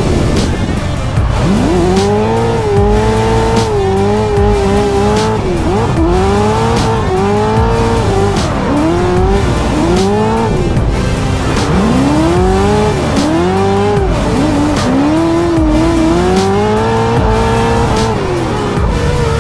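Drift car engine revving hard, its pitch climbing and dropping over and over through the slides, with tyres squealing. Background music with a steady beat runs underneath.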